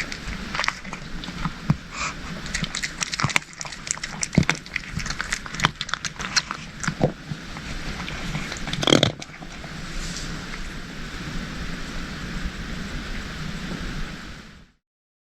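Cats crunching dry kibble: many quick, sharp crunches, with a louder short noise about nine seconds in. After that the crunching gives way to a steady hiss, and the sound cuts off suddenly near the end.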